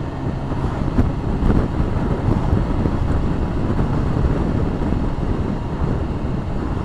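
Wind buffeting the microphone of a motorcycle moving at road speed, over the low steady drone of its engine.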